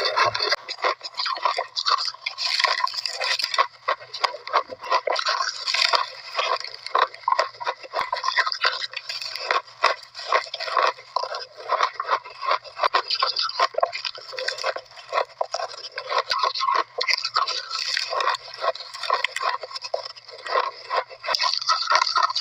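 Close-miked chewing of shaved ice: a continuous run of irregular crunches and crackles.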